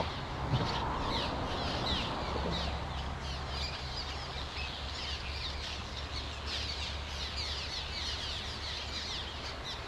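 A colony of swallows calling at their mud nests: many short, squeaky downward chirps overlapping throughout, over a steady low rumble.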